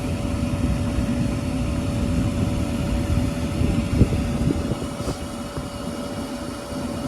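York gas-fired rooftop HVAC unit running in heat mode: a steady rumble of burner and fans with a constant hum, and a couple of light knocks about four and five seconds in.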